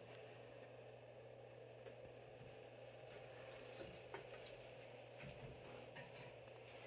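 Near silence: a steady low hum with a few faint ticks, and a faint high tone that slowly falls and then rises again.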